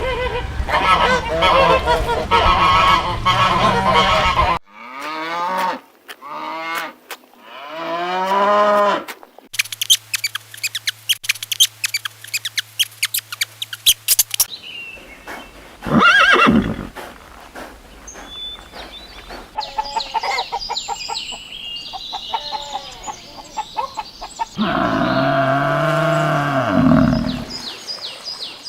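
A string of different animal calls in short cuts, one after another. Dense pitched calls come first, then a run of arching calls, rapid chirping clicks, a single loud call, scattered chirps, and finally a long, loud, low call.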